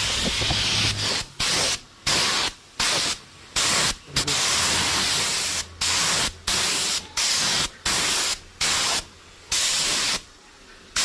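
Compressed-air paint spray gun hissing in one steady pass, then triggered on and off in about a dozen short blasts of roughly half a second each, with one longer pass in the middle.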